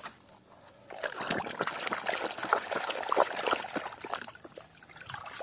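Muddy water sloshing and splashing in a plastic tub as a toy van is swished back and forth to wash it, starting about a second in.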